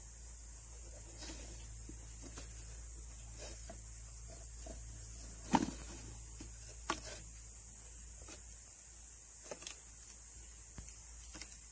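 Light clicks and taps of bamboo being handled as a thin bamboo strip is wound and tied around a green bamboo tube, with a sharper knock about five and a half seconds in and a lighter one a second later.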